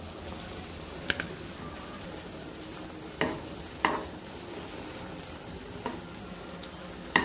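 A metal spoon stirring milk powder into mashed carrots for gajar ka halwa in a pan on the stove, over a steady hiss. The spoon clinks sharply against the pan about five times, loudest near the end.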